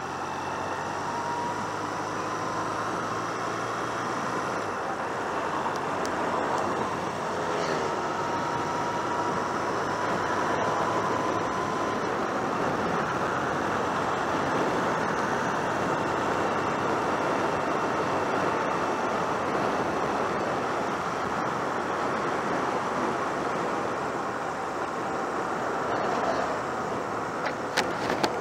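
1996 Honda CMX250C Rebel's engine running as the motorcycle rides along, its pitch rising over the first few seconds, under a steady rush of wind and road noise on the microphone. A few sharp clicks come about a second before the end.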